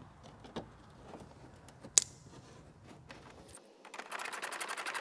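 Faint clicks and rattles of plastic fender-liner and bumper trim pieces being handled and fitted, with one sharp click about two seconds in. Background music starts near the end.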